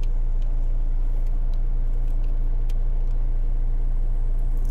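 Low, steady hum of a car's engine idling, heard from inside the cabin, with a few faint clicks as plastic steering-wheel cover pieces are handled.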